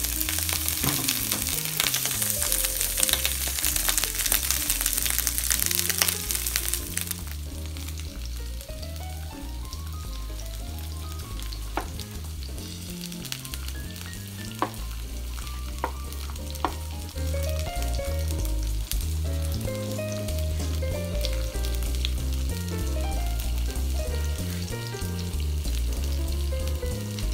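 Halved habanero chiles, onion and garlic sizzling as they fry in a spoonful of oil in a pan. The sizzle is loud for about the first seven seconds, then drops abruptly to a quieter hiss. Later come a few sharp taps of a knife against a plastic cutting board as a mango is sliced.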